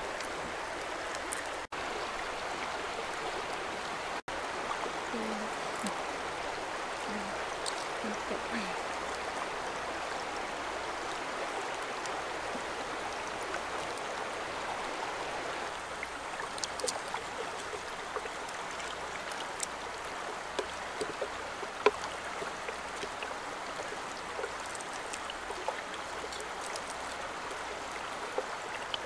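Shallow stream flowing over rocks: a steady rush of water. Small scattered clicks and taps come in over it in the second half, with one sharper tap about 22 seconds in, and the sound cuts out for an instant twice near the start.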